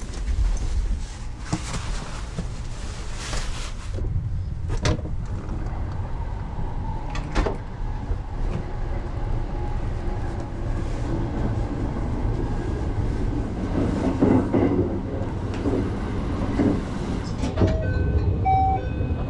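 Sleeper train carriage heard from inside, a steady low running rumble with a few sharp clicks. Near the end a short electronic chime melody of stepped tones begins.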